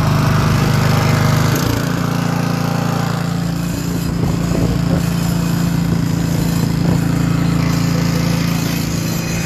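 Small petrol engine of a portable salvage pump running steadily, pumping water out of a swamped jet ski's hull through a suction hose. Its note changes slightly about a second and a half in.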